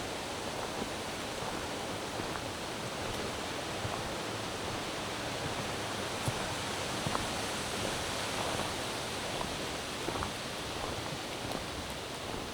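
Steady, even rushing of forest ambience, with a few faint ticks and snaps scattered through it.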